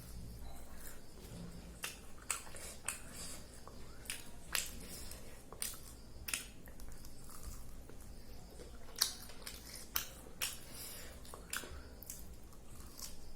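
A person eating close to the microphone: chewing with irregular sharp mouth clicks and smacks, a dozen or so spread unevenly over the stretch.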